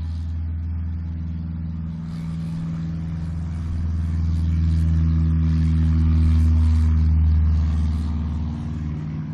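Cessna 152's four-cylinder Lycoming engine at full takeoff power during the takeoff roll, a steady low drone that grows louder about four seconds in, then eases back slightly near the end.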